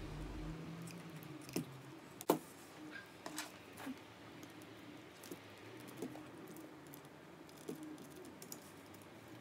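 Scattered soft clicks and light taps of a DJI Mavic Pro drone's small plastic and metal parts being handled, a few close together, the sharpest about two seconds in.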